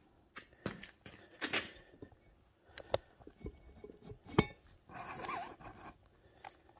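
Scattered light clicks and metallic clinks of tools and small parts being handled, with one sharp click about four and a half seconds in.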